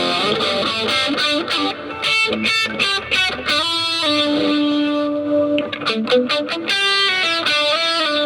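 Electric guitar played through effects to show off its tone: quick runs of short single notes, with one note held for about a second and a half near the middle.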